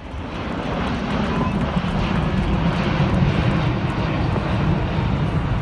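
Airbus A380's four jet engines at takeoff power as the airliner climbs out overhead: a steady, heavy jet noise, strongest in the low end, that swells in over the first second.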